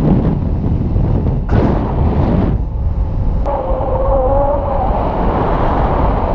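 Wind buffeting the harness-mounted camera's microphone in paraglider flight: a steady low rumble with a brighter gust about a second and a half in. A wavering whistle comes in about three and a half seconds in.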